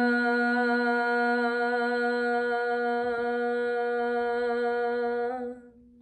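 A woman's singing voice holding one long, steady top note on an open vowel with a slight waver, as part of a vocal warm-up exercise. The note fades out about five and a half seconds in.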